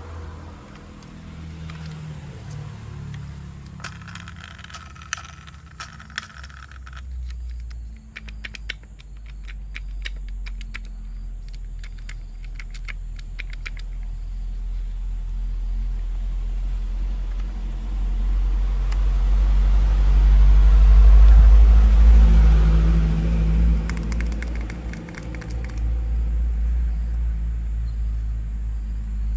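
Plastic toy train pieces being handled, with clusters of sharp clicks and rattles, over a deep rumble that swells in the middle and eases near the end.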